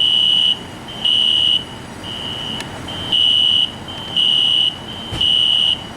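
Fire alarm sounding a high-pitched electronic beep, about half a second on and half a second off, roughly once a second, with a fainter tone carrying on between the beeps.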